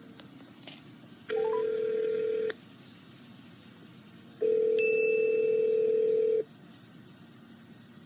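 Telephone ringback tone of an outgoing call on speakerphone through a JBL Clip 2 Bluetooth speaker: two steady rings, the first about a second long and the second about two seconds, with a pause between them while the call waits to be answered.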